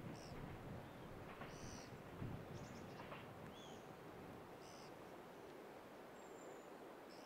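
Faint, short, high chirps from small birds, one every second or so, over a low, steady background hiss, with a brief low rumble about two seconds in.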